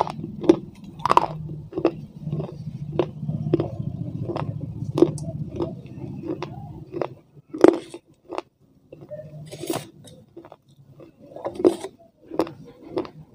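Close-miked chewing of something crunchy, with sharp crunches about twice a second and a louder crunch near the middle.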